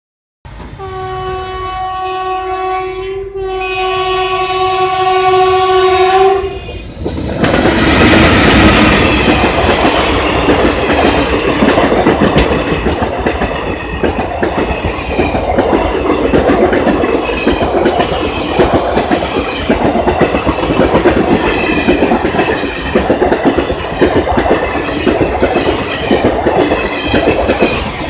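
Indian Railways WAP-4E electric locomotive sounding its horn in a long blast, briefly broken about three seconds in, as it approaches the level crossing. The express then passes at speed, its coaches rumbling with a regular clickety-clack of wheels over rail joints.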